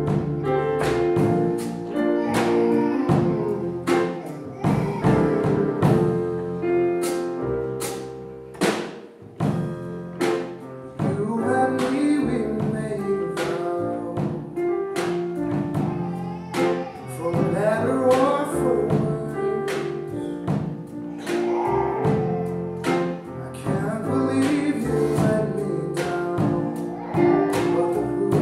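A live band playing: a drum kit keeps a steady beat under keyboard, upright double bass and guitar.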